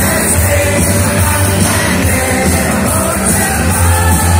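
Loud rock-style music with singing over a heavy, steady bass.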